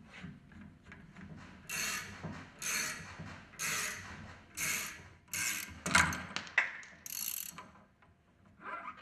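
Ratchet clicking in repeated strokes, about one a second, as a puller is worked to draw a ball bearing off a centrifugal pump shaft.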